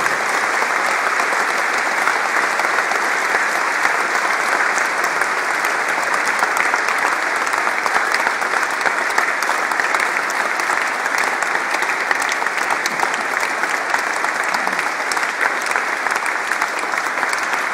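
Large crowd applauding, steady dense clapping from a hall full of people.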